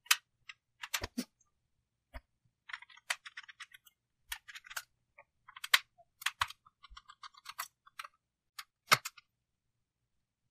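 Irregular small clicks, taps and short rattles of a precision screwdriver and fingers working on a laptop's 2.5-inch hard drive and its mounting screws, with the sharpest clicks about six and nine seconds in.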